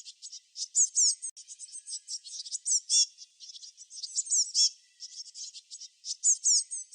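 Small songbirds chirping and twittering in dense, rapid strings of high-pitched notes, with louder phrases of quick sweeping notes standing out several times.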